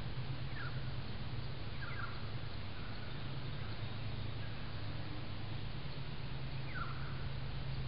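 Steady hiss and low hum from a trail camera's microphone in the bush, with three short, falling chirps from a bird.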